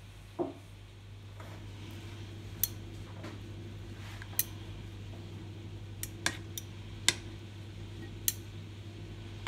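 Metal kitchen tongs clicking against a ceramic bowl while a stuffed green chilli is turned in gram flour batter: about eight sharp, separate clicks, some close together, over a steady low hum.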